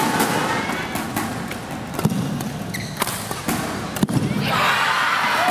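Badminton rally: rackets strike the shuttlecock with sharp smacks about a second apart, the last and loudest about four seconds in. A hum of spectators' voices rises after it.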